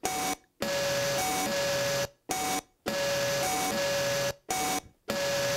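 Circuit-bent Yamaha DD-6 drum machine's bass drum voice, turned by a bent matrix connection into a steady buzzy electronic tone. The tone flips back and forth between a lower and a higher pitch, and short abrupt silences cut it off several times. It plays through the toy's own small speaker.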